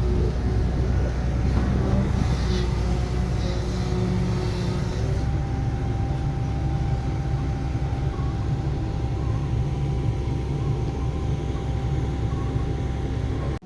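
Diesel engine of heavy construction machinery running steadily, with some clatter in the first few seconds. The engine note shifts about five seconds in.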